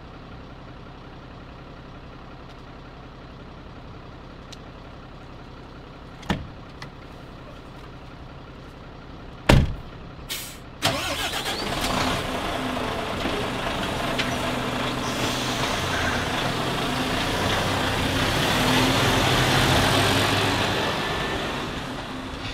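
Iveco truck heard from the cab: a low steady hum, a click about six seconds in and a sharp knock about nine and a half seconds in, then the diesel engine and road noise come up loudly about eleven seconds in, swelling and easing off near the end as the truck drives off.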